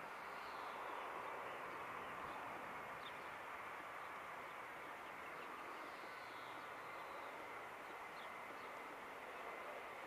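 Boeing 757-200's jet engines at idle as the airliner taxis after landing: a steady distant rush with a faint high whine.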